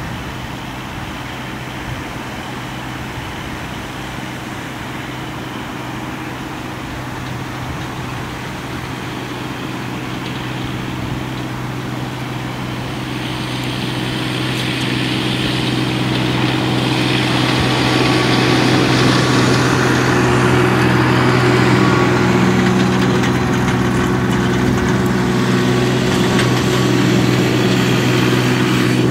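An engine running steadily at idle, a low even hum that grows louder about halfway through and then holds.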